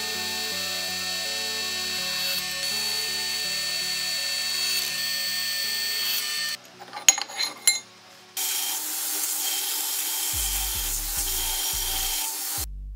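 Drill press running and boring through flat steel bar, a steady whine with the hiss of cutting. About six and a half seconds in it stops for a few sharp metal clinks. From about eight and a half seconds a belt grinder grinds the end of a steel bar.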